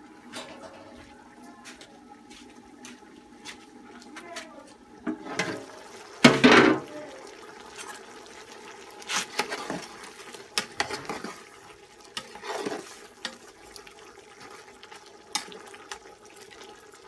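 Pot of meat stew boiling over a wood fire, with a metal clatter about six seconds in as the pot's lid comes off. A metal ladle then knocks and scrapes in the pot several times.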